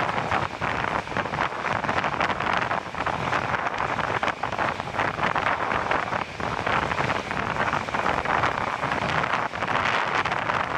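Wind rushing over the microphone out of the window of a moving passenger train, with the train's running noise underneath; the rushing is steady and full of rapid buffeting crackles.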